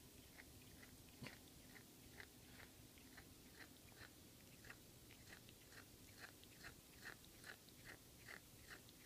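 Faint, quick clicks from a cat's mouth, about two to three a second, coming a little closer together in the second half.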